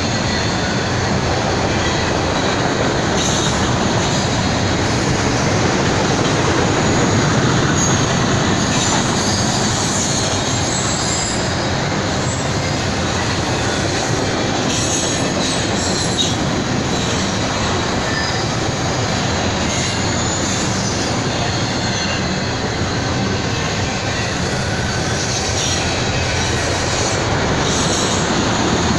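Freight train of autorack cars rolling past: a steady rumble and rattle of wheels on the rails, with a high wheel squeal now and then.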